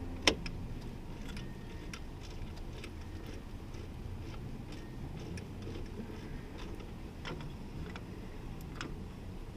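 Scattered light clicks and taps of hand work on a pickup's third-door handle and its clips, with one sharper click just after the start.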